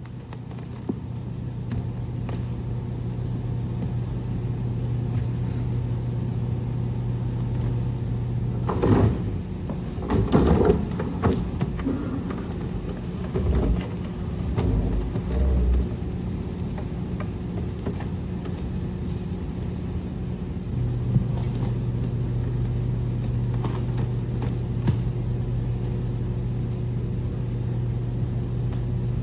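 A steady low hum, mechanical and engine-like, with a cluster of knocks and bumps about nine to sixteen seconds in; the hum drops out in the middle and returns about twenty-one seconds in.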